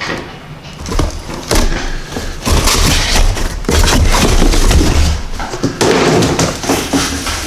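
Handling noise while unpacking: a loud run of rustling, knocks and bumps as parts and packaging are moved about, with a low rumble under it from a few seconds in.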